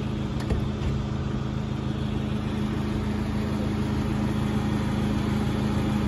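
Passenger van's engine idling steadily.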